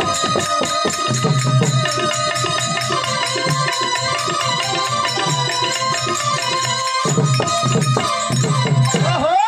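Instrumental accompaniment for a Marathi bharud: fast, busy hand-drum beats with a rattling jingle over steady held melody tones. Near the end a quick run of rising notes sweeps upward.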